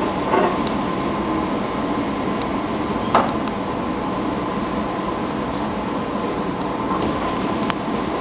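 Steady hum inside the cab of a 115 series electric train standing at a platform, its onboard equipment running, with a few light clicks, the loudest about three seconds in.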